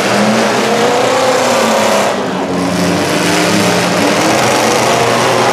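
Several demolition derby cars' engines revving together, their pitches rising and falling over one another, as the cars drive and push at each other.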